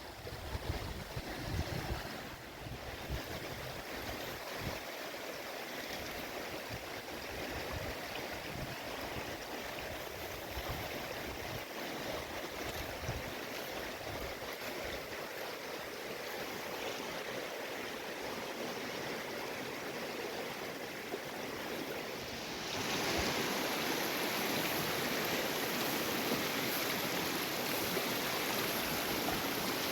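Steady rushing of flowing water, with a few low thumps in the first seconds; it turns louder and brighter suddenly about 23 seconds in.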